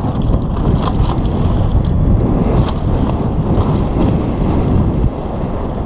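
Wind buffeting the microphone of a helmet-mounted camera on a downhill mountain bike rolling fast over a dirt and gravel trail, with tyre noise and a few sharp clicks and rattles from the bike over bumps, around a second in and again a little later.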